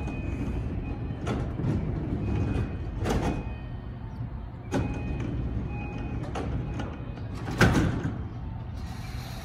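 Sliding passenger doors of a JR Keiyo Line commuter train closing at the platform, over a steady low rumble from the standing train. Several knocks, with the loudest thud about seven and a half seconds in as the doors shut.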